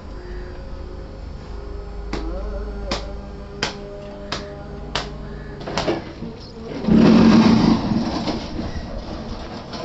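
Work sounds in a cement brick yard over a steady machine hum: a run of six sharp clicks about 0.7 s apart, then about seven seconds in a loud, second-long rattling rush as a loaded steel wheelbarrow of gravel is moved.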